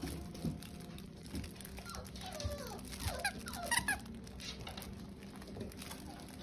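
Four-week-old shepsky (German Shepherd–Husky mix) puppies squeaking and whining: a run of short squeals, each falling in pitch, about two to four seconds in.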